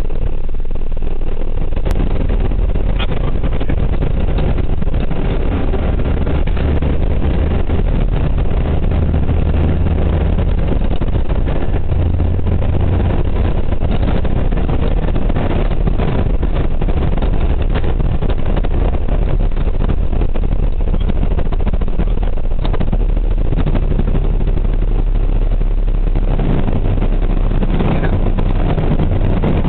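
Jet airliner take-off heard from inside the cockpit: the engines run at take-off thrust with the rumble of the take-off roll, a loud steady noise that carries on as the aircraft climbs away.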